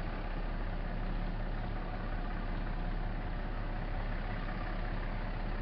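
Truck engine running steadily at low revs while the truck creeps in reverse down a wooded track, heard from inside the cab.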